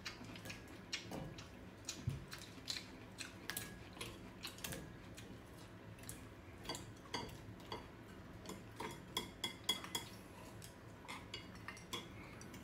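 Chopsticks clicking and scraping against plates and bowls during a meal: soft, irregular taps scattered throughout, a few a second at the busiest.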